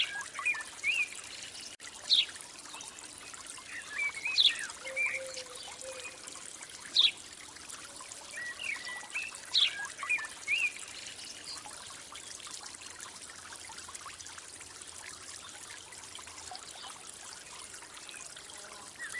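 A stream trickling steadily, with birds giving short high chirps, most of them in the first half.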